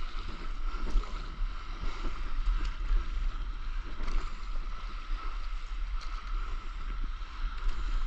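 Water splashing and rushing around a moving stand-up paddleboard, with wind buffeting the action camera's microphone as a rough, uneven low rumble.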